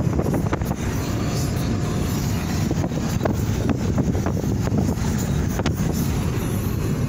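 Steady low rumble of a moving car heard from inside the cabin: road and wind noise, with a few light clicks.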